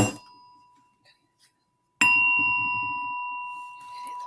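A bell-like chime is struck twice, about two seconds apart, each strike leaving a clear ringing tone. The first dies away within about a second; the second rings on for about three seconds.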